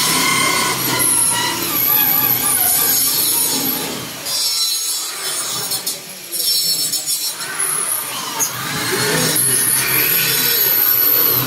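Power drill driving screws through fiberboard ceiling panels into the steel furring frame, in several long runs of grinding with short pauses between them.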